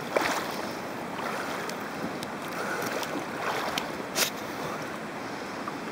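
Steady rush of a fast-flowing river, with a few short clicks and knocks, the loudest about four seconds in.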